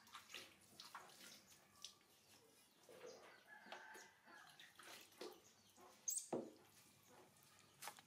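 Faint splashing and dripping of bath water in a plastic tub as a newborn baby monkey is dipped and lifted, with a few soft knocks and a faint high call in the middle.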